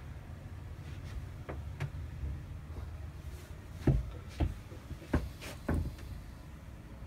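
Scattered dull knocks and bumps over a low steady hum, the loudest about four seconds in and a quick run of them between five and six seconds in.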